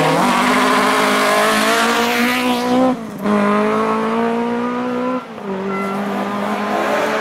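Rally car engine accelerating hard through the gears, with two upshifts about three and five seconds in; at each the pitch drops, then climbs again.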